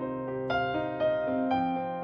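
Soft piano music, with notes sounding at a slow, even pace.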